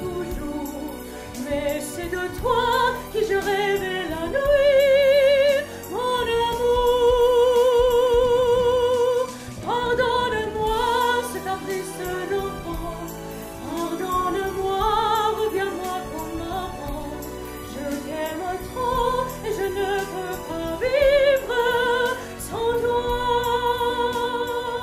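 A woman singing solo into a handheld microphone. Her melody has several long held notes, each with a wide, even vibrato.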